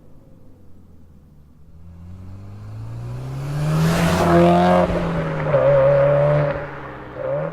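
Subaru WRX STI exhaust through an HKS aftermarket muffler, the engine note climbing in pitch as the car accelerates and growing loud as it passes. The pitch drops briefly at its loudest, then picks up again. The sound falls away, with a short rise again near the end.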